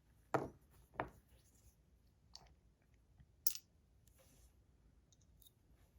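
Fidget buttons being handled and swapped on a fidget, giving a few separate sharp clicks and taps at uneven intervals, the sharpest about three and a half seconds in.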